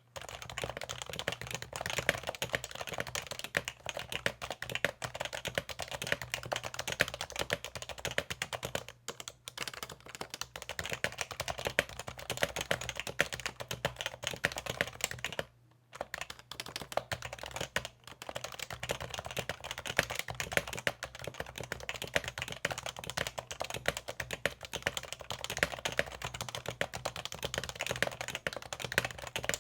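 Fast, continuous typing on an HHKB keyboard: a dense run of key strokes that stops briefly twice, about nine and sixteen seconds in.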